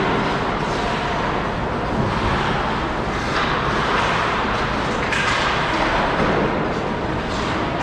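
Rink noise of a hockey game in play: a steady scraping hiss with a few faint sharp clacks of sticks.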